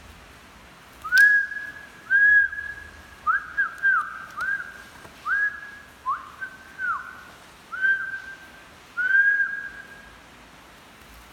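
A series of about ten clear whistled notes. Each note is held at one pitch with a quick slide up at the start and down at the end, and some come in quick pairs.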